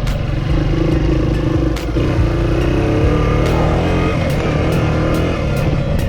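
1979 Honda XR80's small single-cylinder four-stroke engine running under way as the bike is ridden, its revs rising and falling.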